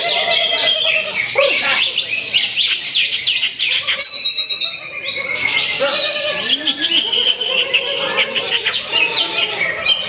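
Cucak hijau (greater green leafbird) singing a fast, unbroken stream of high chirps and trills, pausing briefly about four seconds in. Other birds and voices sound faintly beneath it.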